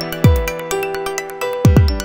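Electronic background music: held synth notes over deep bass hits that drop sharply in pitch.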